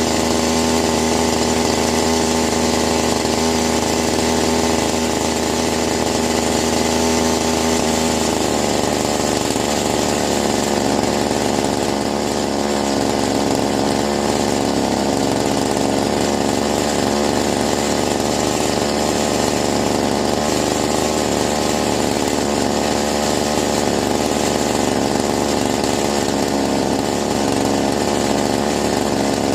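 Two-stroke engine of a Chinese clone chainsaw running steadily while its carburetor is being adjusted. About eight seconds in, its even note gives way to a rougher, less steady one.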